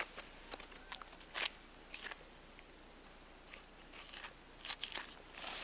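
Knife cutting elk hindquarter meat and connective tissue away from the pelvic bone: faint, irregular crisp crunches and clicks.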